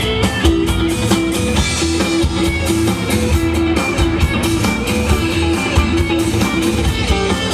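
A band playing the instrumental intro of a Taiwanese Hokkien pop song: guitar over bass and drums with a steady beat.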